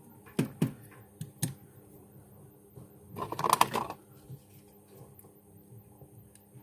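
Small tools clicking and tapping on a workbench: four sharp ticks in the first second and a half, then a quick rattle of clicks about halfway through.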